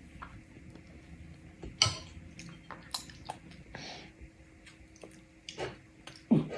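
A toddler eating: scattered light clicks of a metal spoon against a bowl, with wet chewing and mouth noises. A short low child's vocal sound comes near the end.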